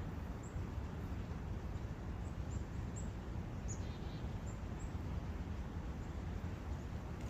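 Steady rushing of a forest brook, with short high bird chirps a few times over it.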